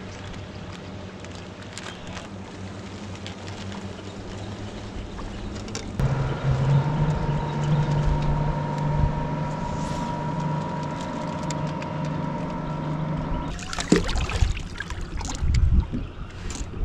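Bass boat's bow-mounted electric trolling motor running with a steady hum, stepping up to a louder, higher whine about six seconds in and shutting off near the end. A few knocks and rustles follow it.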